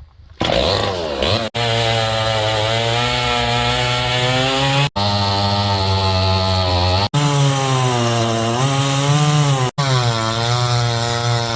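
Husqvarna 162SE two-stroke chainsaw running at high revs, its pitch climbing as it revs up and then rising and dipping. The sound cuts off abruptly four times, as if spliced.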